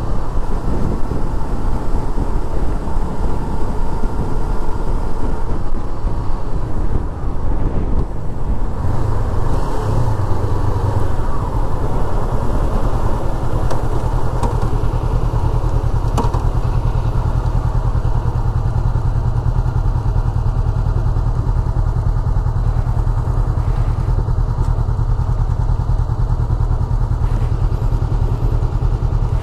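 Honda sport motorcycle riding with wind rushing over the microphone, slowing about a third of the way in, then its engine idling with a steady low hum while stopped in traffic.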